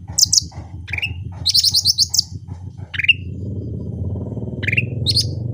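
A cucak rante singing vigorously: loud, sharp chirps and a quick rattling run of notes in the middle, broken by short pauses. A steady low hum runs underneath and grows fuller about halfway through.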